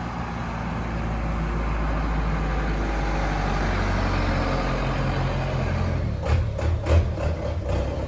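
Engine of a vehicle bringing a load of stones, growing louder over the first couple of seconds as it approaches and then running steadily. A few knocks come near the end.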